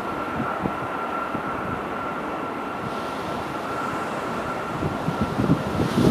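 Boeing 737-800's CFM56 jet engines held at high thrust, heard inside the cabin as a steady roar with a constant high fan tone. The sound brightens about halfway through, and low rumbling with uneven jolts builds near the end.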